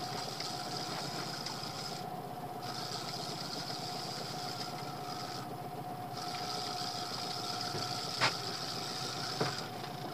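Small outboard motor idling steadily, with two short sharp clicks near the end.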